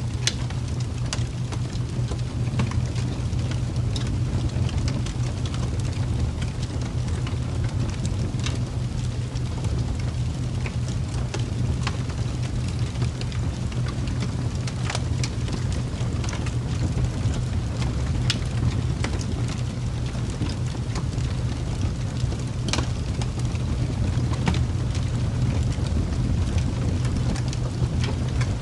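A steady, low, rumbling ambience noise with sparse, irregular crackling ticks scattered through it, a sleep-ambience bed of the rain or fire kind.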